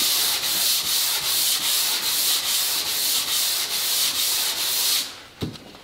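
Sandpaper on a hand-held sanding pad rubbed briskly back and forth along a wooden rail: a steady scratchy hiss that pulses with each stroke, about two or three strokes a second, stopping about five seconds in.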